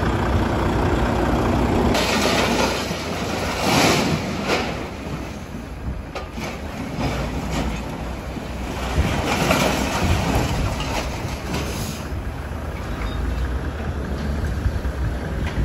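Heavy diesel vehicles running steadily, a truck and a scrap-handling excavator, with several louder hissing, noisy surges, the strongest about two and four seconds in and again near the middle.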